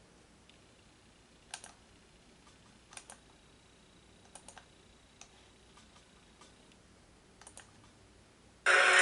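Faint sharp clicks of a computer keyboard or mouse, several in quick pairs, over a near-silent room. Near the end a loud, dense sound with steady tones starts abruptly.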